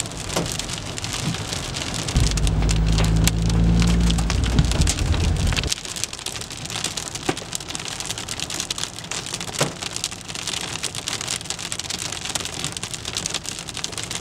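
Heavy rain drumming on a car's windscreen and body, heard from inside the cabin, with scattered sharp taps of hailstones. About two seconds in, a loud low rumble sets in for some three seconds and stops abruptly.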